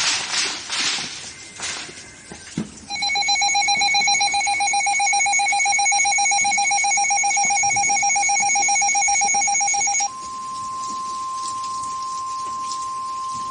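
Emergency Alert System attention signal: a pulsing two-tone alarm that sounds for about seven seconds, then switches abruptly to a single steady tone, the NOAA Weather Radio warning alarm. It announces a severe thunderstorm warning. Rain noise is heard briefly before the tones start.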